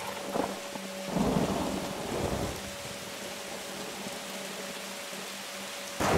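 Storm sound effects from a film soundtrack played over room speakers: a steady hiss of rain and wind, a deep thunder rumble about a second in, and a sudden loud crash near the end.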